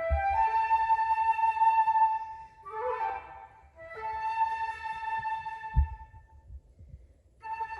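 Solo flute playing slow phrases of long held notes, with a short flurry of notes about three seconds in and a brief pause before the next phrase starts near the end.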